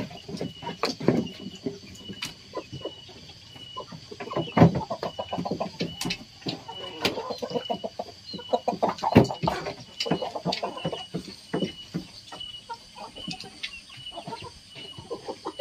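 Domestic chickens clucking as they feed, with scattered sharp taps of beaks pecking grain from a woven basket. A faint high chirp repeats evenly in the background.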